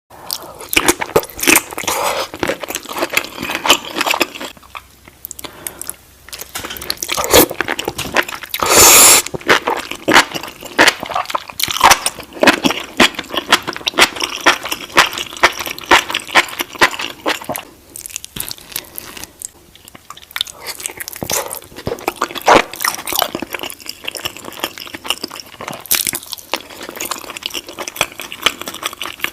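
Close-miked eating sounds: biting into and chewing seafood-boil shrimp, with many sharp crunches and a longer loud crunch about nine seconds in.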